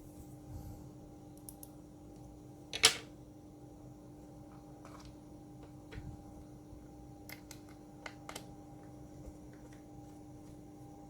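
Small screwdriver driving the battery screws in an open MacBook Pro: scattered light clicks and taps, with one sharp click about three seconds in, over a faint steady hum.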